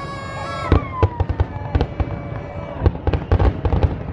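A dense barrage of fireworks going off: many sharp bangs and crackles over a constant low rumble. For the first second or so, long high whistling tones ring above the bangs and then slide down and fade.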